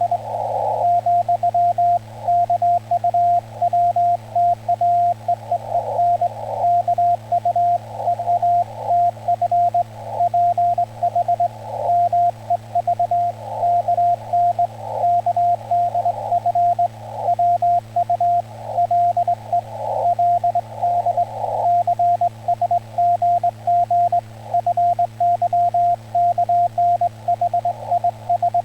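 Ham radio CW signal: a steady tone keyed on and off in dots and dashes of Morse code, here Korean (Hangul) Morse sent by straight key. Patches of hiss come and go around the tone, over a steady low hum.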